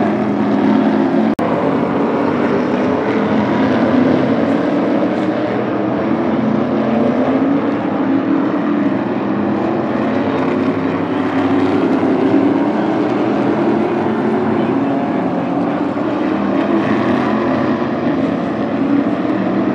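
Field of modified race cars running laps around a short oval, their engines blending into one steady, loud drone.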